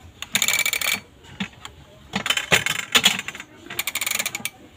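Stainless-steel cooking pots and lids clinking and rattling against each other as they are handled, in three short bursts of metallic clatter.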